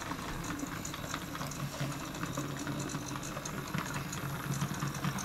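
Battery-powered Anpanman toy police car's small motor whirring as it drives along a segmented plastic track, with light rapid clicking as it rattles over the track pieces.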